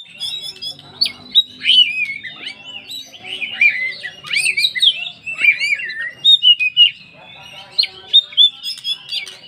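Oriental magpie-robin (kacer poci) singing a fast, varied song of rapid whistles, slurs and chirps packed with mimicked phrases of other birds, with a brief pause a little past the middle.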